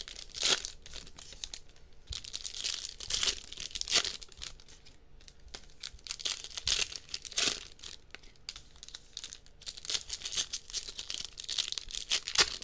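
Trading card blaster box and its foil card packs being torn open, the wrappers crinkling in several bouts with a few sharp snaps.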